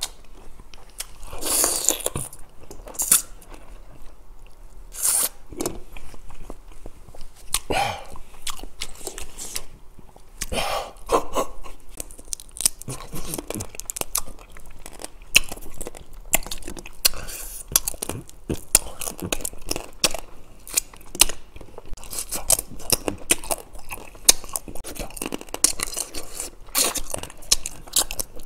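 Close-up eating sounds of soy-sauce marinated raw crab: crunching and biting into the shell, with chewing, in a dense run of sharp clicks and crackles.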